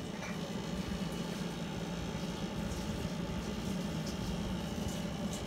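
A steady low hum over faint background noise, with a few small faint ticks.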